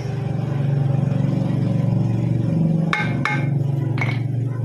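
Hammer tapping a flywheel clamped in a lathe chuck to true it up, three sharp metallic taps with a ring about three seconds in, over the steady low hum of the lathe running.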